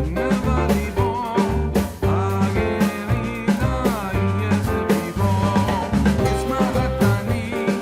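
Background music with a steady beat: drums, bass and a melody line.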